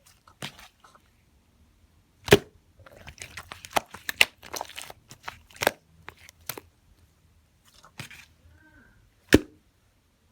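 Purple slime being squeezed and played with by hand, making irregular sharp clicking pops; the loudest pops come about two seconds in and near the end, with a busy run of smaller pops in the middle.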